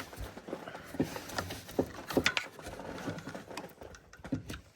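Irregular light clicks and knocks of hands working at the dash wiring, unhooking a connector.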